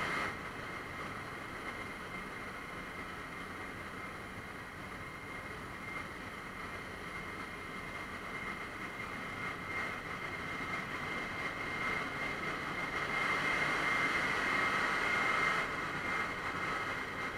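Ship's engine-room machinery running: a steady din with a high, constant whine. It grows louder past the middle and eases near the end.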